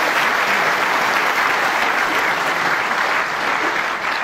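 Snooker audience applauding a shot, a steady round of clapping.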